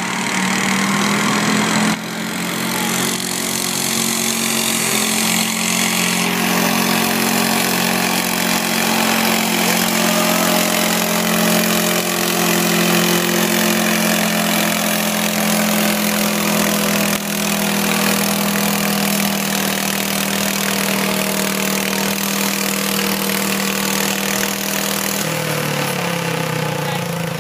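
Modified lawn tractor's engine running hard under load as it pulls a weight-transfer sled, loud and steady, then dropping in pitch near the end.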